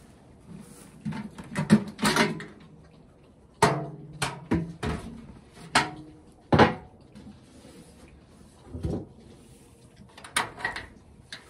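Irregular clanks and knocks from a galvanized steel trash can and its metal lid being handled, about a dozen sharp hits, some with a short metallic ring.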